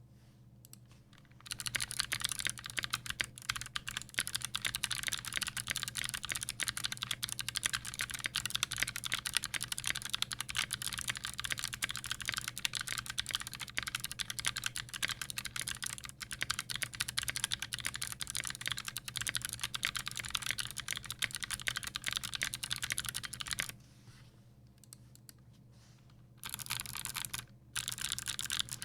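Fast typing on a custom 60% Poseidon60 mechanical keyboard with a brass plate, lubed Kailh Speed Bronze switches and GMK keycaps: a rapid, continuous clatter of keystrokes. The typing stops for a couple of seconds about three-quarters of the way through, then comes back in two short bursts near the end.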